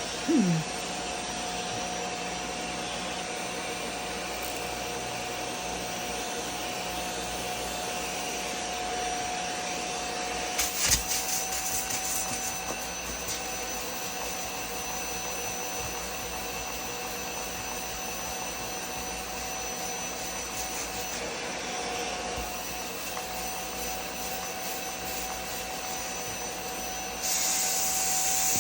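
Bissell Little Green Max Pet portable carpet and upholstery cleaner running, its suction motor holding a steady whine. A brief crackle comes about eleven seconds in, and a louder hiss joins near the end.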